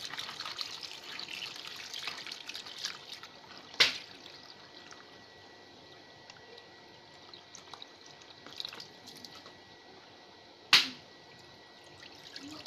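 Water running from a hose into a plastic basin while pieces of squirrel meat are sloshed and rubbed by hand, dying down after about three seconds to small drips and splashes. Two sharp knocks, about four and eleven seconds in, are the loudest sounds.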